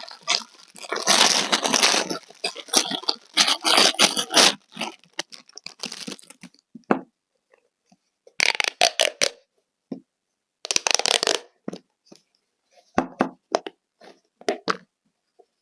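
Handmade toys being squeezed and handled, making crackling, crunching sounds in irregular bursts. The bursts come thick at first, then sparser, with short silences between them.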